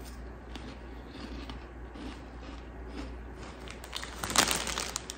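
A person chewing a crunchy snack, with faint irregular crunches and a louder crackly burst about four seconds in.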